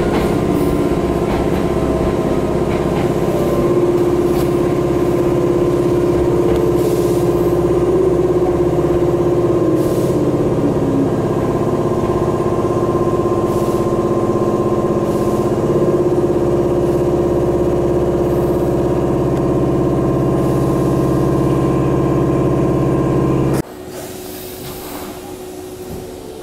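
Interior running noise of a Nose Electric Railway ex-Hankyu electric train, with a steady electrical hum. In the first half a whine falls in pitch as the train slows into a station. Near the end the loud hum cuts off suddenly, leaving much quieter background noise.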